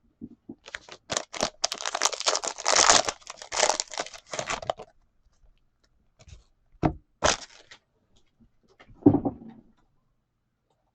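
Wrapping on a sports card hobby box being torn open and crinkled for about four seconds, then two sharp clicks and a single thump.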